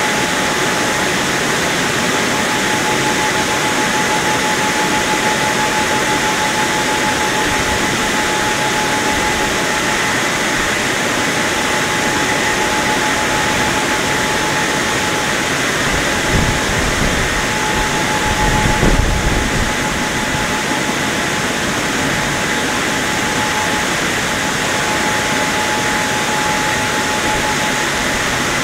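WashTec SoftCare2 Pro rollover car wash gantry running its dryer blowers as it travels along the car: a loud, steady blowing noise with a constant whine. A low rumble swells for a few seconds about two-thirds of the way through.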